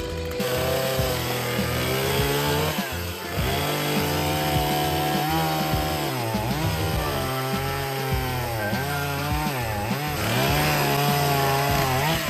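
Small gas chainsaw cutting through logs, its engine pitch sagging under load and climbing again several times as it works through the cuts.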